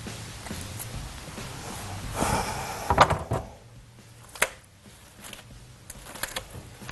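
Kitchen handling sounds: a short rustle as a gloved hand works marinade over raw chicken pieces in a ceramic dish, then a few sharp knocks and clicks of dishware on the stone worktop, with a last single click about four seconds in.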